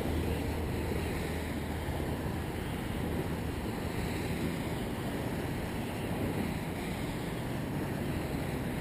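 Wind rumbling steadily on the microphone, with road traffic going by.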